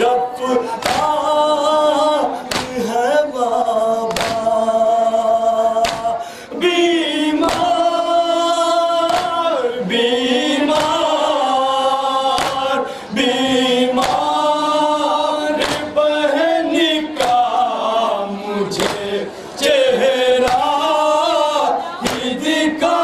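An Urdu nauha (Muharram lament) sung by male voices: a lead reciter on a microphone with the group chanting along in long held phrases. Sharp strikes of hand-on-chest matam keep the beat about once a second.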